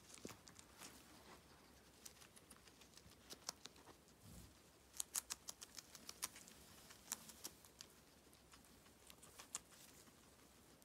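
Guinea pig eating lettuce: quiet, crisp crunching clicks in irregular runs as it chews.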